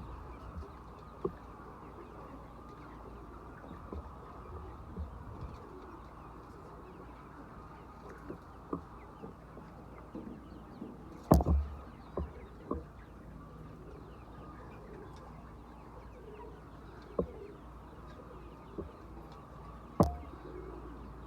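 A flock of chickens making low, soft calls, with scattered small clicks and two sharp knocks, about 11 and 20 seconds in.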